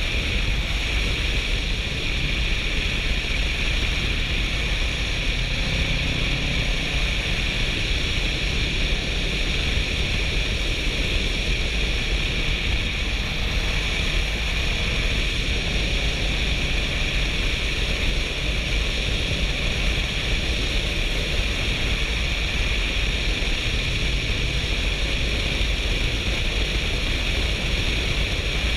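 Steady wind rush buffeting a helmet-mounted GoPro at road speed, with the Kawasaki Versys 650's parallel-twin engine running faintly underneath.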